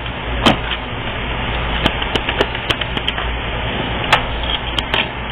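Irregular sharp clicks and taps, about ten of them and some in quick succession, over a steady low hum and hiss.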